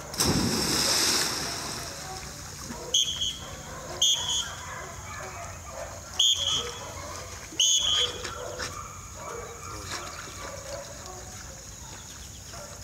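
A yellow Labrador retriever jumps off the bank into a pond with a big splash. A few seconds later, as the dog swims, a dog-training whistle gives four short, sharp blasts, stop-and-look signals to the swimming dog.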